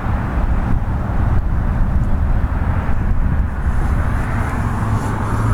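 Steady outdoor rumble of road traffic, deep and continuous, with no distinct events.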